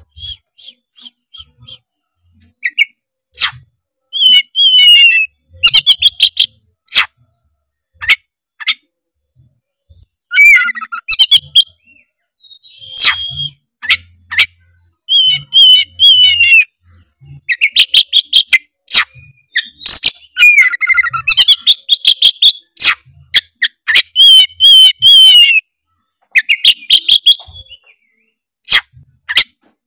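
Oriental magpie-robin (kacer) singing loudly in varied phrases of whistled, gliding notes and harsh clicking calls, broken by short pauses.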